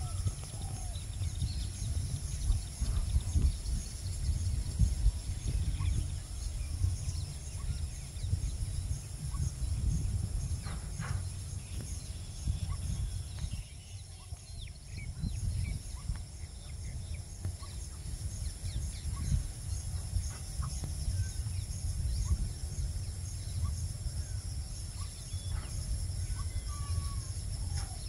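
Wind buffeting the microphone in gusts, over a steady high insect drone with a regular pulse and a few faint bird calls.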